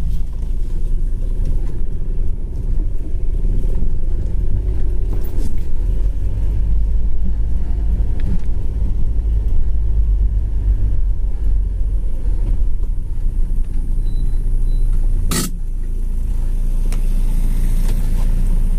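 Steady low rumble of an off-road SUV's engine and tyres driving along a sandy track, heard from inside the cabin. A single sharp knock comes about fifteen seconds in.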